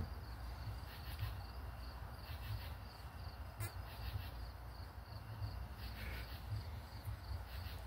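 Crickets chirping: a steady run of short, evenly spaced high chirps over a low background hum.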